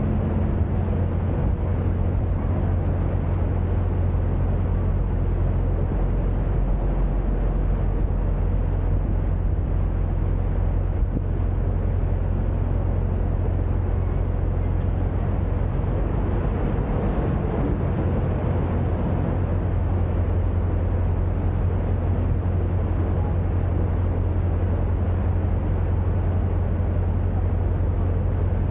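A boat's engine running steadily, a low even drone under a haze of wind noise.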